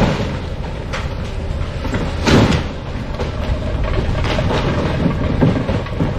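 A heavy engine running with a steady low rumble, broken by knocks and one louder clank a little over two seconds in.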